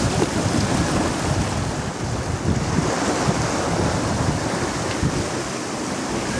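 Wind buffeting the microphone over the steady rush of sea water, aboard a sailboat under way.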